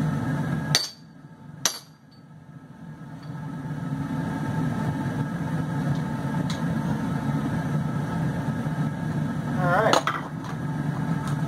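Steady low rumble of the running forge, which cuts out sharply about a second in and builds back up over the next couple of seconds, with a few sharp metal knocks and clanks from handling hot steel at the forge.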